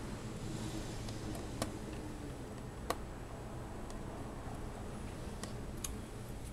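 A few sharp, isolated small clicks, the loudest about three seconds in, from small screws and plastic laptop parts being handled during reassembly, over a steady low hum.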